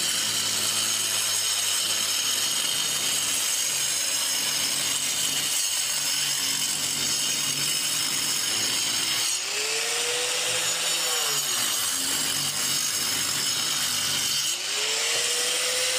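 Angle grinder cutting a groove into a brick wall for electrical conduit, a steady motor whine over the noise of the disc grinding through brick and mortar. The pitch shifts briefly about ten seconds in and again near the end, and the grinder stops at the end.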